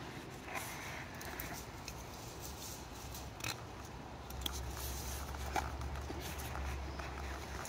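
Faint scattered rustles and small clicks of a dry wild grape aerial root strand being twisted by hand into reverse wrap cordage. A low rumble comes in about four seconds in.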